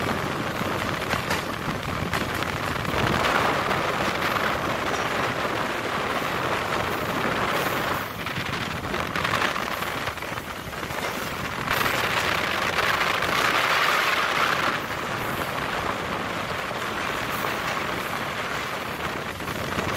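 A MEMU electric passenger train running at speed, heard from on board: a steady rushing of wheels on the track and passing air. It swells louder twice, about three seconds in and again from about twelve to fifteen seconds in.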